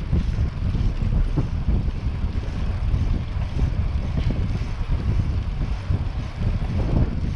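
Wind buffeting the microphone of a camera riding along on a bicycle, a loud low rumble that rises and falls in gusts.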